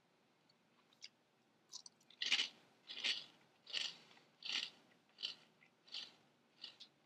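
A person chewing a mouthful of crunchy CinnaFuego Toast Crunch cereal squares. There are steady crunches about every three-quarters of a second, starting about two seconds in and growing fainter.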